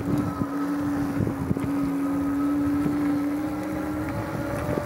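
Geared rear hub motor of a RadRunner electric bike whining steadily under power on pavement, over the low rumble of wind on the microphone and tyres on the road. About four seconds in, the whine shifts to a higher pitch.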